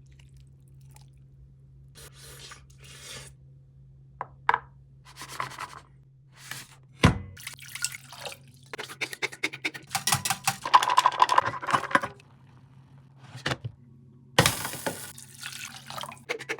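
Hands-on workshop handling noises: scattered clicks, scrapes and rustles over a steady low hum. There is a sharp knock about seven seconds in, and a denser stretch of scraping or splashing from about nine to twelve seconds.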